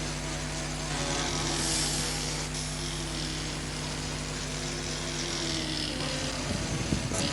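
Steady mechanical drone holding an even pitch, with a hiss swelling about a second in and rough fluttering near the end.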